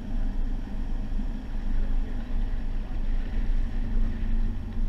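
A four-wheel drive's engine and tyres on a rough dirt track, heard from inside the cabin: a steady low drone with uneven jostling noise.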